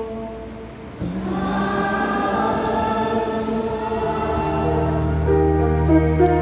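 Church choir singing with instrumental accompaniment, starting about a second in after a short lull, with deep held bass notes coming in about four seconds in. It is the sung Gospel acclamation that follows the second reading at Mass.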